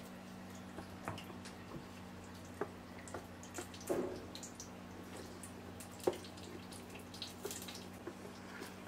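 A wooden spatula stirring and scraping thick, creamy à la king sauce in a pot, giving irregular wet squelching clicks and small knocks against the pot, over a steady low hum.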